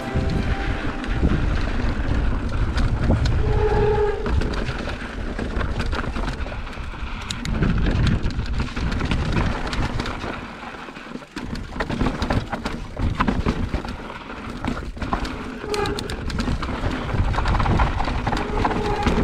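2020 Specialized Turbo Levo electric mountain bike riding down a rocky trail: wind buffeting the action camera's microphone, tyres rumbling over dirt and rock, and many sharp clicks and rattles from the bike over rough ground. A short whining tone comes in about four seconds in and again near the end.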